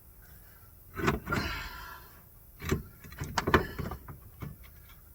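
Clunks and knocks, with a short scraping rasp after the first, as a replacement rear strut assembly is pushed and wrestled up into place past the plastic splash shield. Three main knocks, the last a quick cluster.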